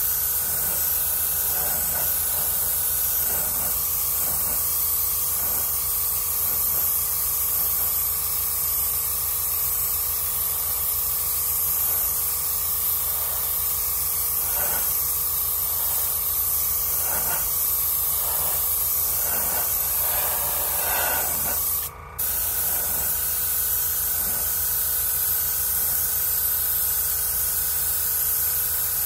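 Gravity-feed airbrush spraying white paint, a steady hiss of air with a steady hum underneath. The spray cuts out for a moment about two-thirds of the way through, then resumes.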